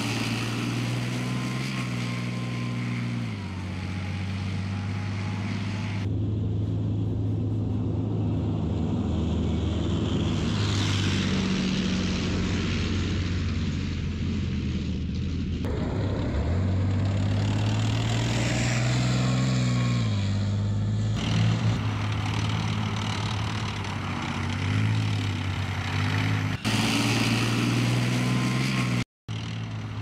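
Leopard 2 tank's V12 diesel engine running and revving as the tank drives, the note rising and falling over several shots that change abruptly.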